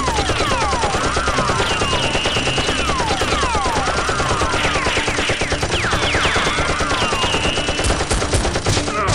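Dubbed-in gunfire sound effects: rapid automatic fire in a continuous stream, laid over with many quick falling whistling tones.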